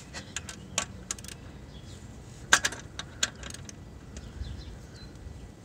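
Scattered metallic clicks and clinks of a small hand socket wrench tightening a motorcycle's oil cooler bracket bolt, the loudest about two and a half seconds in.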